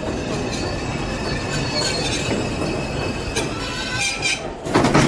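Subway train running, a steady low rumble with high-pitched wheel squeal on the rails. A loud short rush of noise comes near the end.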